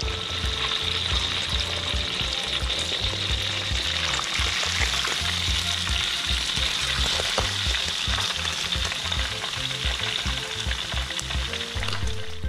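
A whole fish deep-frying in hot oil in a wok: a dense, steady sizzle and crackle of bubbling oil.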